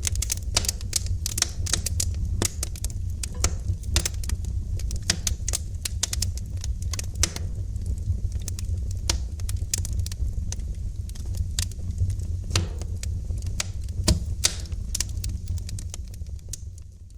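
Wood fire burning in a fireplace, crackling with dense, irregular sharp pops and snaps over a steady low rumble, fading down near the end.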